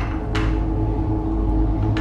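Edited sound-effect bed: a low rumbling drone with a few steady tones, and one sudden sharp sound about a third of a second in.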